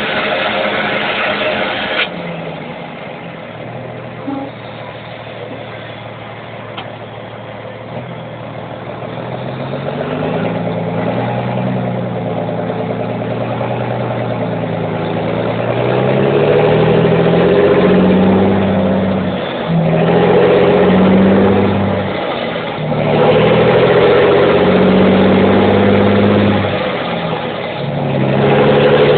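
Volkswagen Constellation truck's diesel engine and exhaust, its note stepping up and down in pitch as the revs change, getting louder and higher through the second half with several short dips.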